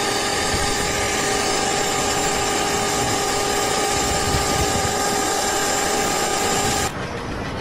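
A machine running steadily with a constant whine over a noisy rumble. It cuts off abruptly about seven seconds in, and a different, quieter steady noise follows.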